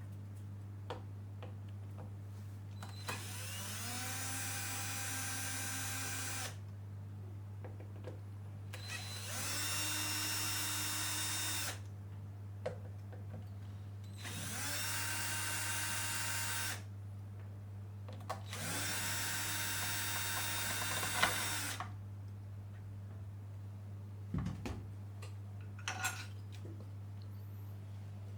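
Cordless electric screwdriver run in four separate bursts of a few seconds each, each one spinning up with a rising whine and then holding a steady pitch, with small clicks and taps of handling between the runs.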